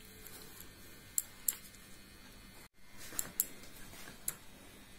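Hand mixing ground oats, sugar powder, ghee and milk in a plastic bowl, rubbing the fat into the powder for laddu dough: faint rubbing with a few light clicks.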